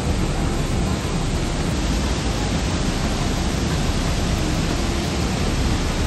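Water pouring over the long concrete weir of the Thirparappu falls: a steady, unbroken rushing noise.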